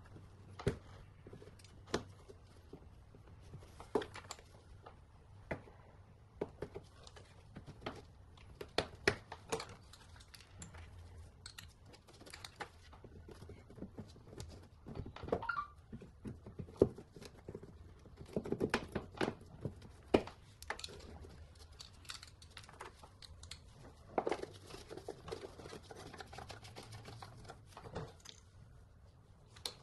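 A hand tool clicking and scraping on the plastic front wheel-arch liner of an Audi A3 as its fasteners are worked loose, with irregular sharp clicks and knocks. Two spells of denser plastic rustling and scraping come about two-thirds of the way in and again a few seconds later.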